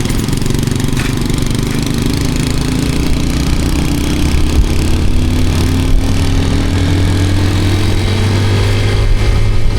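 Motorcycle engine running under way, its pitch rising slowly and steadily as it gathers speed.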